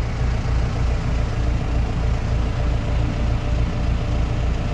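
Heavy farm diesel engine running steadily, a low throb pulsing evenly several times a second.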